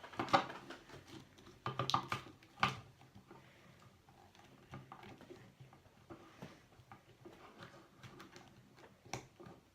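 Small plastic doll parts and accessories being handled: a few sharp clicks and rustles in the first three seconds, quieter fiddling after that, and one more click near the end.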